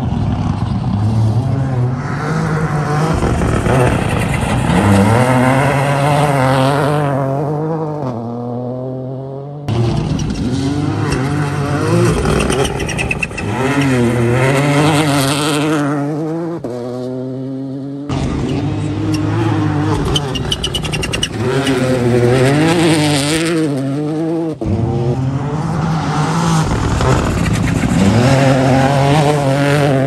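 Rally cars driven hard past on a loose gravel stage, engines revving up and dropping back again and again through quick gear changes, with gravel and mud sprayed by the tyres. Several separate passes follow one another, each starting abruptly.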